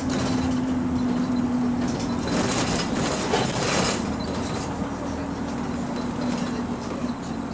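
Bus diesel engine heard from inside the passenger saloon while the bus is under way: a steady drone with a low hum that shifts slightly in pitch, and a burst of hissing noise about two to four seconds in.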